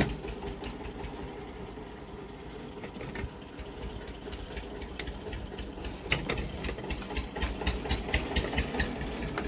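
Steady low hum with many small clicks and taps of tools working on an amplifier circuit board while a resistor is taken out, with a sharp click at the very start and the taps coming thicker in the last few seconds.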